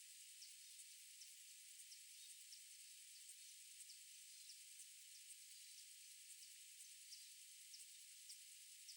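Near silence: faint outdoor ambience of steady high hiss, with faint high ticks repeating evenly about two or three times a second.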